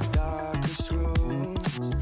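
Dance-pop background music with a steady beat.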